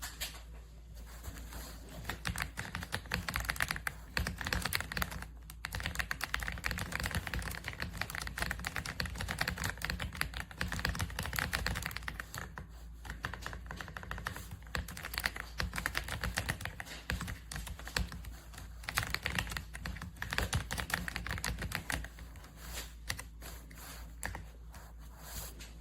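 Fast, continuous typing on an RK Royal Kludge R75 gasket-mounted mechanical keyboard, a dense run of keystrokes broken by a few short pauses.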